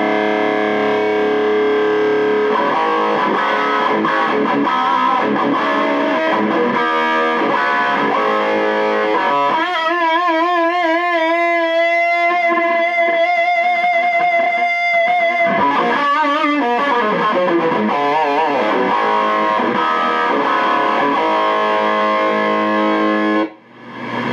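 Electric guitar played through a Divided by 13 RSA 23 tube amplifier's Pentode channel and a speaker cabinet: chords and single notes, some held with wide vibrato partway through. Near the end the playing cuts off suddenly, leaving the amplifier's steady low hum.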